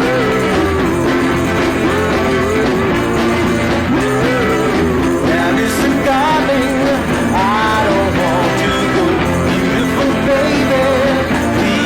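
Rock music with a steady beat, guitar and a melodic line that may be singing.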